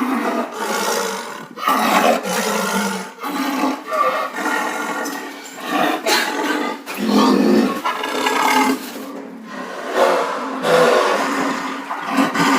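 A series of loud, roar-like animal calls, one every second or so, each rising and fading.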